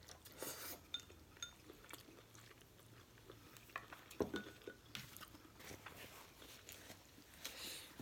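Faint eating sounds: chewing, with scattered light clicks and clinks of utensils against a bowl.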